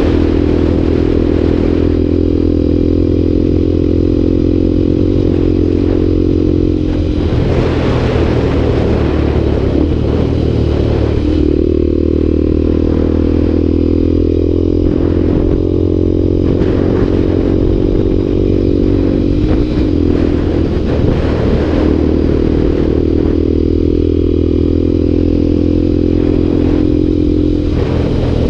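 Motorcycle engine running steadily at road speed on a dirt road, with tyre noise from the loose surface. The engine note eases off and picks up again a few times, about seven, eighteen and twenty-seven seconds in, as the throttle changes.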